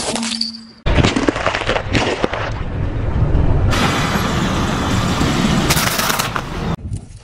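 A squeeze-toy rubber duck gives a short squeak as a car tyre flattens it. Then a car tyre rolls over a row of wafer biscuits on asphalt, crushing them with a loud crunching and tyre noise that cuts off suddenly near the end.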